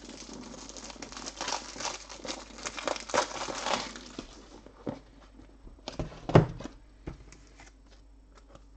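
Trading-card pack wrapper crinkling for about four seconds as it is handled and opened, then a few light knocks, the loudest about six and a half seconds in.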